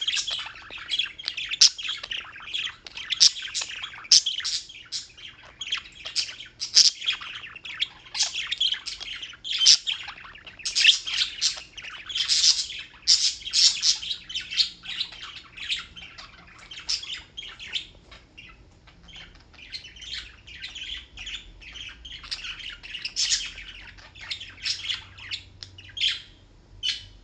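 Birds chirping continuously: many quick, high-pitched calls packed close together, with squawks among them.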